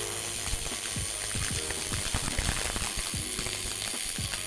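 Pulsed MIG welding of 3 mm aluminium sheet with AlMg5 filler wire on an EWM Picomig 180 Puls: the arc gives a steady, fast crackle of short sharp clicks over a faint hum.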